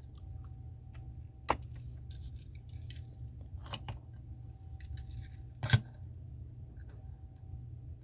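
A few sharp clicks and snaps from the blister packaging of die-cast toy cars being opened and handled, the loudest about two-thirds of the way through, over a steady low hum.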